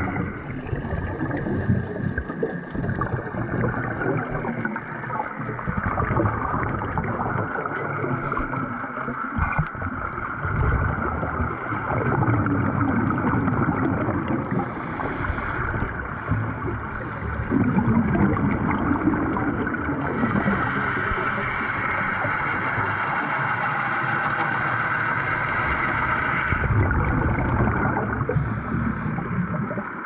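Scuba diver breathing underwater through a regulator, heard from close by: short hissing inhalations every few seconds and the surging gurgle of exhaled bubbles, over a constant muffled wash of water noise.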